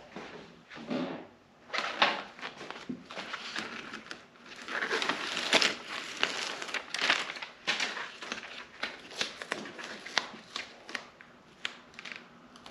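Sound-deadening foam being handled and pressed into place: irregular crinkling and crushing rustles with sharp clicks, busiest about five seconds in.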